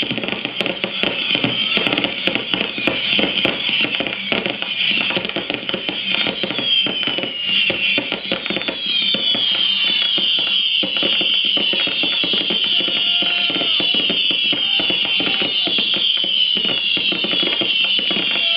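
A rapid barrage of consumer artillery-shell fireworks bursting close by, the bangs overlapping into a continuous rumble. From about a third of the way in, many high whistling glides join the bangs.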